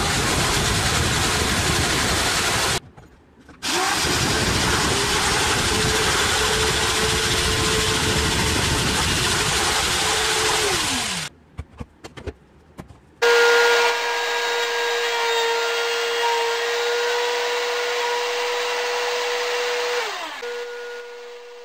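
Truper electric jigsaw sawing through a laminate flooring board: a loud, rough cutting rattle over the motor's tone, with a brief stop about three seconds in, then the motor winds down about eleven seconds in. After a short pause with a few clicks, a bench-mounted power tool runs with a steady whine and winds down near the end.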